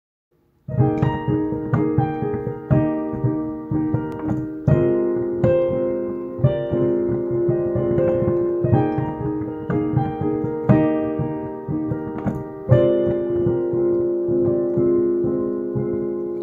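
Piano music, a gentle instrumental intro of sustained chords struck about once a second, starting just under a second in.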